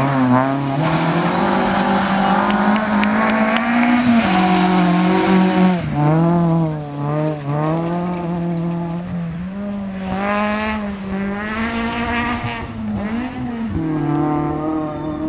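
Rally car engine revving hard at full load, its pitch climbing and dropping sharply at each gear change and wavering as the driver works the throttle through corners.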